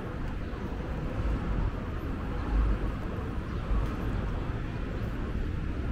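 Outdoor urban ambience: a steady low rumble with no clear single source, swelling into three heavier low surges about a second apart.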